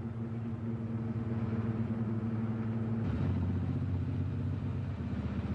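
Vintage BMW 327's straight-six engine running as the car drives. About three seconds in, the sound changes from a steady, even hum to a lower, rougher beat with rapid firing pulses.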